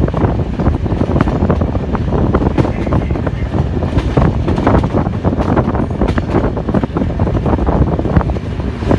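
Train moving out of the station, rolling past with a continuous rumble and many irregular clacks and rattles from the wheels and cars. Wind buffets the microphone throughout.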